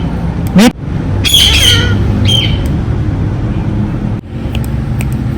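Indian ringneck parakeet squawking: a few short, shrill calls in the first two and a half seconds, over a steady low hum.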